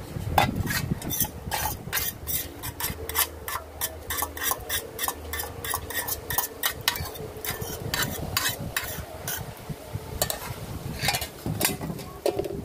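Metal fork stirring food in a black cooking pot on a charcoal stove: quick clinks and scrapes of metal against the pot, about two or three a second, thinning out after about nine seconds.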